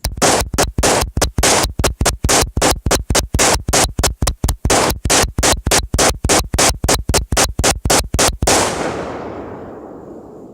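AR-15 rifle fired semi-automatically as fast as the trigger can be pulled, about five shots a second for some eight seconds. The firing stops abruptly, leaving a fading echo.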